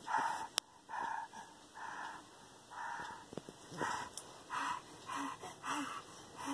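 Excited breathing in short, rhythmic huffs, a little more than one a second, with a couple of short vocal sounds near the end.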